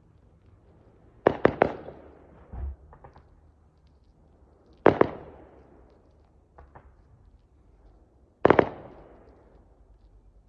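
Fireworks bursting in the air: a quick cluster of three bangs just over a second in, a single loud bang about five seconds in and another near the end, with a duller thump and a few smaller cracks between. Each bang trails off in echo.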